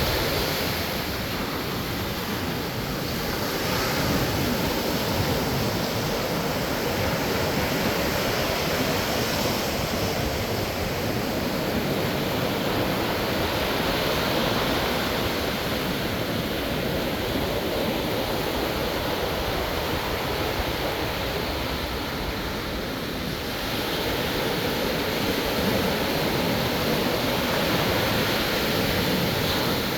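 Ocean surf: waves breaking and washing ashore in a continuous rush, growing a little louder about four seconds in and again near the end.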